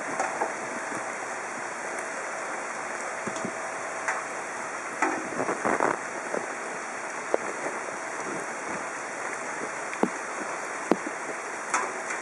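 A steady rush of heavy rain and running floodwater, with scattered sharp ticks and splashes.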